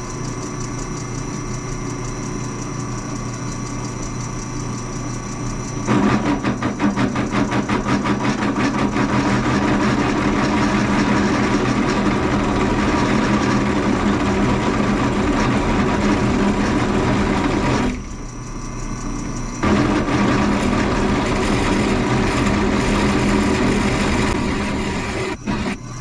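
Bauer 17-inch drill press running, its motor humming steadily. About six seconds in the bit begins cutting into a workpiece, a louder, rough grinding with a rapid rattle. The cutting stops briefly at about eighteen seconds, then resumes and runs until just before the end.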